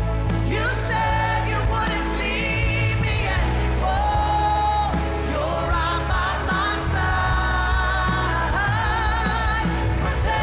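Contemporary Christian worship music: a band with a steady bass under a sung melody held on long notes with vibrato.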